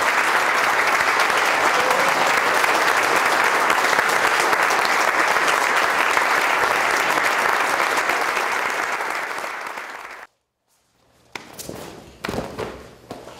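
A room of people applauding steadily, fading out about ten seconds in. After a second of silence, a few faint knocks and shuffles.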